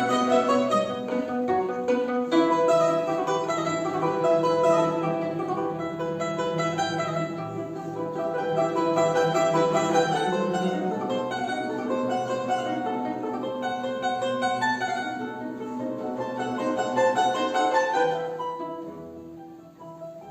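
Instrumental music played on plucked string instruments, many quick notes together, dying away near the end.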